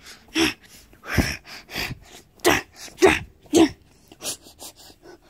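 A person's voice making a run of short coughing, gasping sounds, about six in a row, each a brief outburst.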